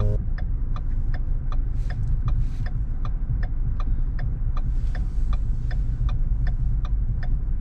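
Car's turn-signal indicator ticking steadily, about two and a half clicks a second, over the low rumble of the idling engine and heater blower inside the cabin.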